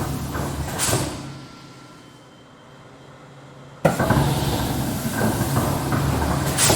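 Industrial stamping machine sound effect: machinery runs with a low hum, gives a heavy stamping thud about a second in and fades off with a hiss. It starts again suddenly about four seconds in, with a second thud near the end.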